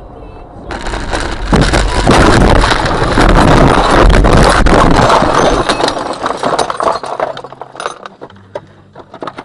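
A car crashing into an oncoming dump truck: a sudden crash less than a second in, then several seconds of crunching and breaking glass. It fades into scattered clinks of falling glass fragments near the end.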